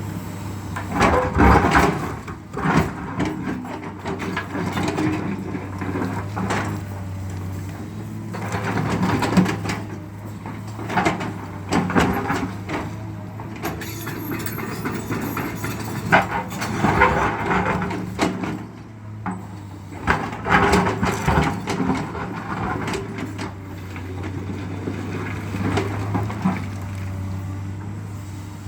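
Diesel engine of an earthmoving machine running steadily while it widens a forest road, with repeated bouts of crunching and clattering as earth, rock and wood are scraped and broken.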